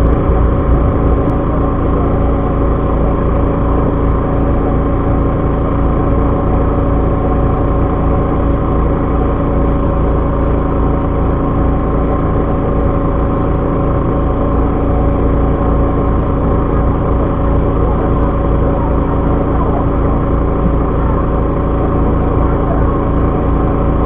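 Fishing boat's engine running steadily, a constant low drone with several steady hum tones over it.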